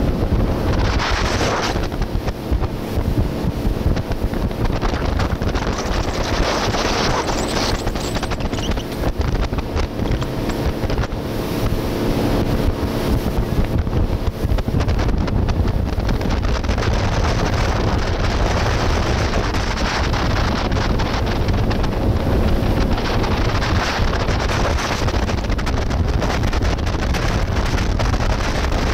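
Wind buffeting the microphone on a moving motorboat, over the steady drone of its engine and rushing water from the wake.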